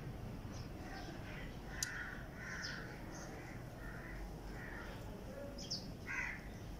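A bird calling in the background: a run of five short calls about two-thirds of a second apart, then one more near the end.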